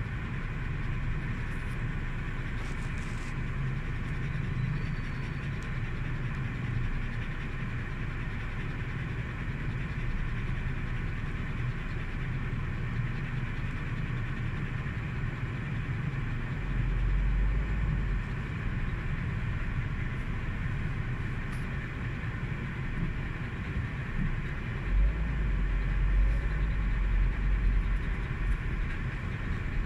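Steady road and engine noise inside a moving car's cabin. A deeper rumble swells twice, about halfway through and again near the end.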